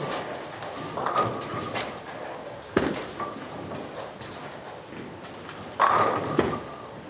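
Bowling alley ambience: balls rolling and pins clattering on the lanes. There is a sharp knock about three seconds in and a louder pin crash near six seconds, ringing briefly.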